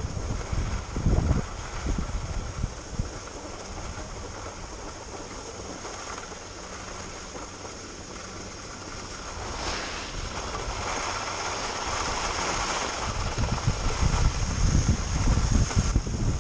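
Wind buffeting the microphone of a skier's camera, mixed with the steady hiss of skis sliding on packed snow. The low buffeting is strongest near the start and over the last few seconds, and the hiss brightens briefly about ten seconds in.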